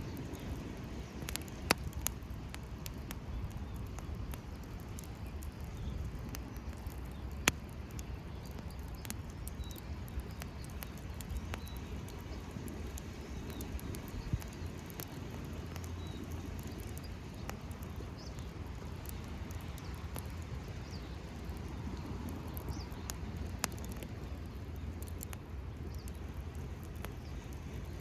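Campfire crackling, with steady small ticks and a few sharp loud pops, over a constant low rumble.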